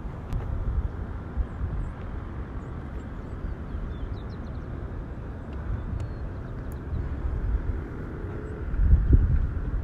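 Wind buffeting a phone's microphone: a low, fluctuating rumble that gusts louder near the end.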